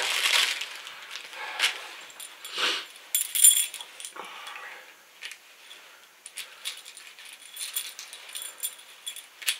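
Keys and a new door lock cylinder clinking and clicking as they are handled and turned in the hands, with a brighter metallic jingle about three and a half seconds in and softer clicks later. Several short soft noises come in between.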